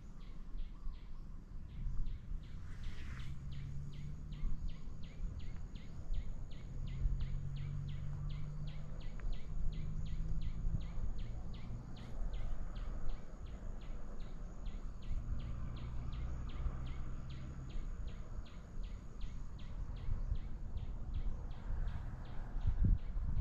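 Outdoor ambience: an even, repetitive chirping of about three pulses a second carries on throughout over a low rumbling noise.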